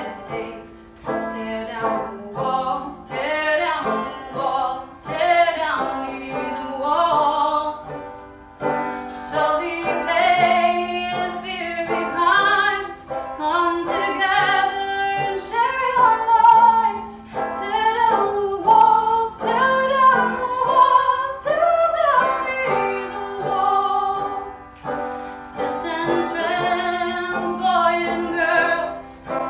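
A woman singing a song, accompanying herself on a banjo.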